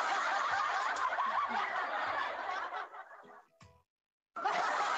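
Laughter from several overlapping voices over music with a soft regular beat. It fades out about three seconds in and cuts to silence for about half a second before starting again.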